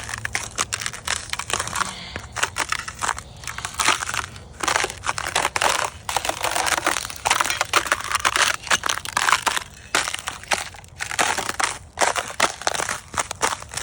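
Thin spring ice crinkling and crushing underfoot, step after step: a dense, irregular crackle with a few short pauses.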